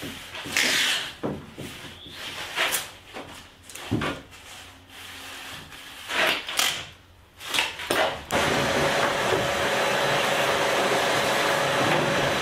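Hand work on the plywood kayak hull: irregular rubbing, scraping and knocks on the wood. About eight seconds in, a shop vacuum starts and runs steadily, its hose nozzle working inside the hull.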